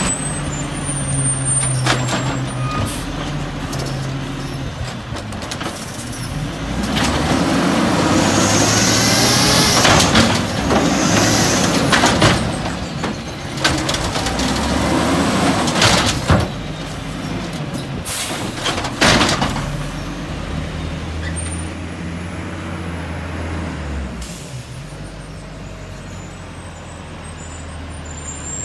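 WhiteGMC WX64 garbage truck with an LNG-converted Cummins L10G engine revving hard as its Amrep rail-arm automated side loader lifts a cart and dumps it into the hopper. Several sharp bangs of the cart and arm come in the middle. Afterwards the engine settles to a steadier, lower running sound.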